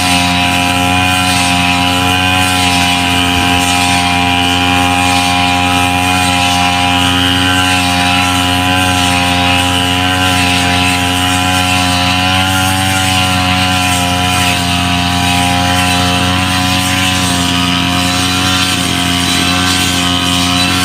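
Brush cutter's small engine running steadily at a fairly constant speed, with only slight drifts in pitch, loud and close.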